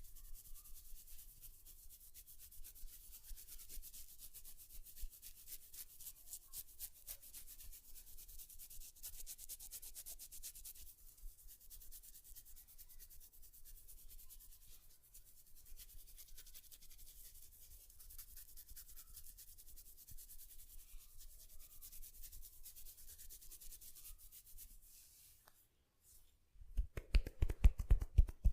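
Head massage: quick, dense, faint scratching and rubbing strokes through hair on the scalp. Near the end it breaks off briefly and gives way to loud, rapid thumps of percussive massage tapping, about three or four a second.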